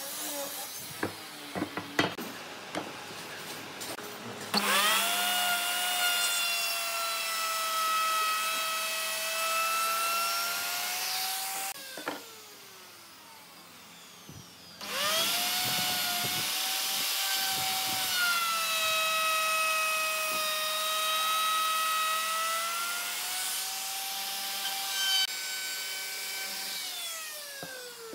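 Electric woodworking power tool run twice on wood for several seconds each time. It spins up quickly with a steady, high whine that sags slightly under load, and the second run winds down with a falling pitch near the end. A few sharp knocks come before the first run.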